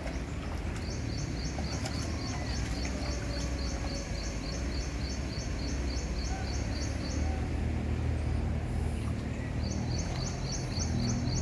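Steady low rumble with a high, even chirping that repeats about three times a second. The chirping stops about seven seconds in and starts again near the end.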